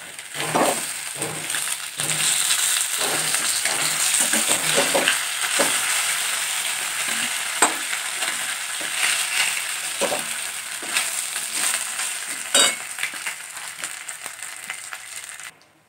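Hot oil sizzling in a metal kadai as fried fish pieces are lifted out with a flat steel spatula, which scrapes and knocks lightly against the pan now and then. The sizzle thins toward the end and cuts off suddenly.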